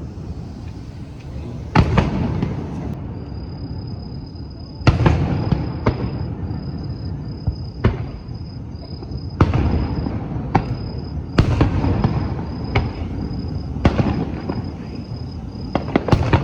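Fireworks display: aerial shells bursting in about nine sharp booms spaced one to three seconds apart, each trailing off in a low rumbling echo.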